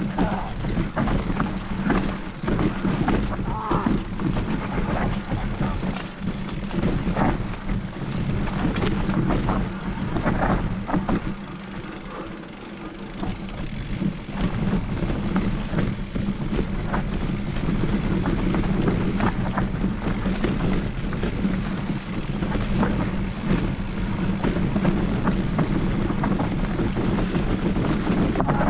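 Mountain bike riding a forest trail: tyres running over the ground and the bike rattling and knocking over bumps, with a steady rumble of air on the microphone. It goes briefly quieter about twelve seconds in.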